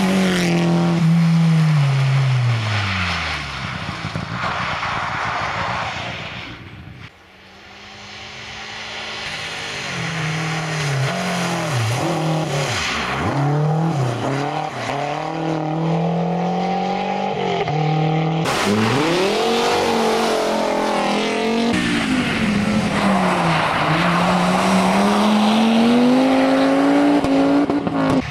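Rally cars driven flat out past the roadside, one after another. Each engine revs hard and drops back through gear changes and lifts, and the first car's engine note falls steeply as it goes by.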